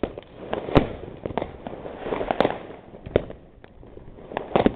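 Fireworks going off: a string of sharp bangs at irregular intervals, the loudest about a second in, with a cluster of bangs near the end.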